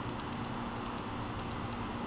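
Steady outdoor background noise: a low hum under an even hiss, with a few faint ticks and no cat calls.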